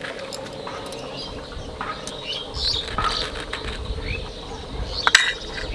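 Small birds chirping on and off, with light taps of a steel tumbler pressed through rolled dough onto a stone board; the sharpest tap comes about five seconds in.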